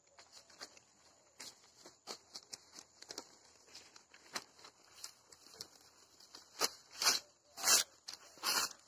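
Newspaper being folded and crumpled by hand: a run of small crinkles and rustles, with four louder crackles in the last two seconds.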